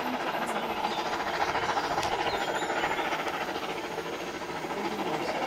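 Double-headed steam train, locomotives 70 083 and 41 018, approaching under steam: a steady, fast-pulsing running noise of exhaust and wheels on the rails.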